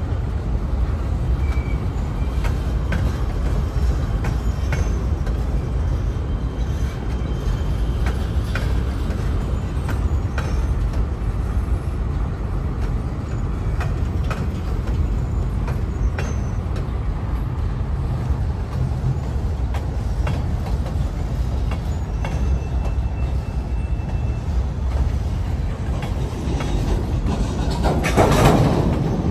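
Freight train of boxcars rolling past: a steady low rumble of steel wheels on rail with scattered clicks and clanks, and a faint thin wheel squeal about two-thirds through. A brief louder rush near the end.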